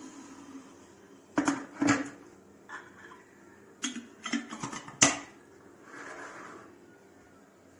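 Metal pot and lid being handled: a series of sharp knocks and clinks over about four seconds, the loudest coming a little past halfway.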